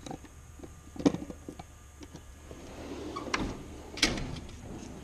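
Hand tools clinking as pliers are laid back in a steel tool-chest drawer, then the drawer sliding shut and stopping with a sharp clack about four seconds in.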